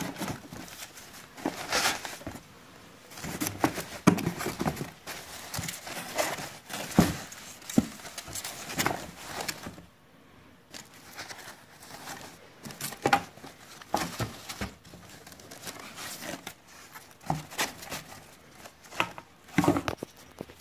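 Cardboard box flaps and plastic packing wrap being handled, crinkling and rustling in irregular bursts, with a few sharper crackles.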